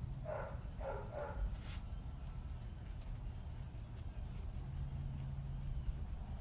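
A puppy gives three short yips in quick succession near the start.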